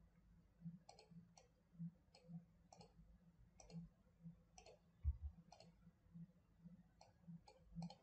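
Faint computer mouse clicks, about a dozen single and paired clicks spread unevenly through, with one dull low thump about five seconds in.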